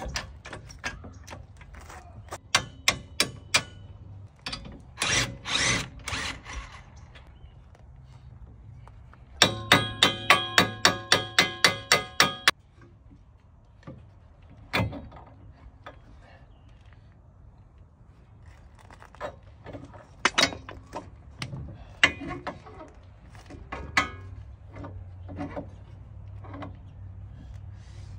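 Clanks and knocks of hand tools and metal parts at a car's front suspension, with a burst of about three seconds from a cordless impact wrench about ten seconds in, backing out a bolt.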